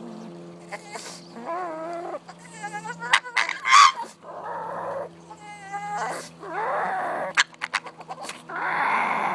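Black pug making strange wavering, warbling cries that bend up and down in pitch, broken by several breathy, hiss-like huffs and a few sharp clicks.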